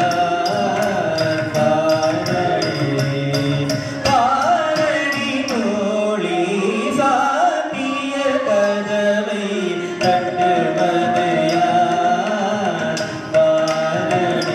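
Carnatic music accompanying a Bharatanatyam dance: a vocalist sings with gliding ornaments in the middle, over a steady beat of sharp, evenly spaced strikes that come in the first seconds and again near the end.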